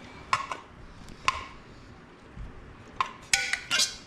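Large pliers bending a metal tab on an ashtray back and forth to break it off: scattered sharp metallic clicks with a short ring, then a quick cluster of clinks and creaks near the end.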